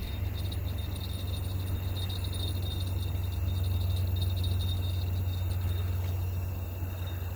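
Crickets chirping steadily in a high continuous trill over a steady low rumble.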